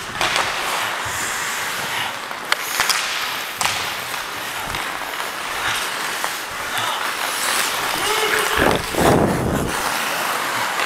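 Ice skate blades scraping and carving on rink ice, with the hiss of skating and air rushing past a helmet camera, and sharp clicks of hockey sticks and puck. The sound gets louder and rumbles lower about eight and a half seconds in.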